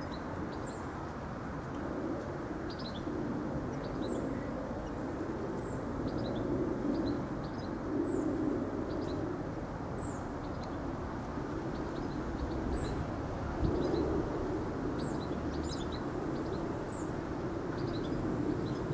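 Birds chirping in short, high, scattered calls over a low, steady rumble that swells and fades a little: an NIR 201 Class diesel-electric locomotive approaching at a distance.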